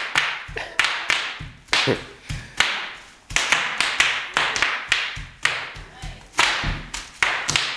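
Bubble wrap being popped: many sharp, irregular snaps, several a second, coming in quick clusters.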